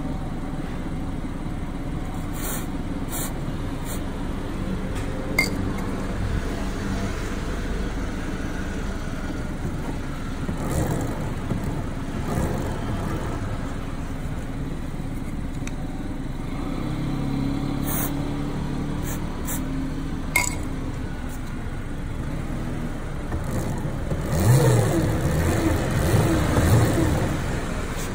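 Gogoro electric scooter running, with a steady whir and road noise and scattered sharp knocks from the underside. The owner traced these knocks to a dry, uncleaned drive chain. Near the end a louder passing vehicle rises and falls in pitch.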